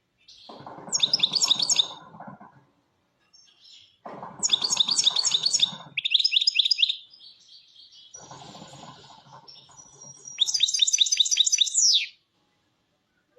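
European goldfinch singing: three phrases of rapid, high twittering trills, with short pauses between them.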